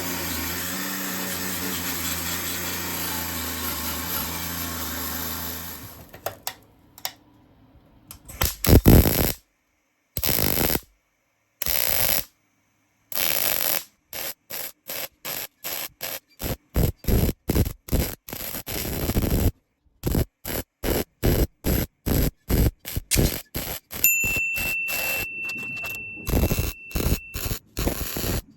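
Angle grinder with a wire wheel running steadily, stopping about six seconds in. Then a MIG welder crackles in short stop-start bursts, a few longer ones and then many quick ones, filling bolt holes in the body panel a little at a time.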